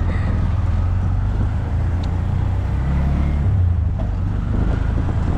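Steady low rumble of a vehicle, with no clear events standing out.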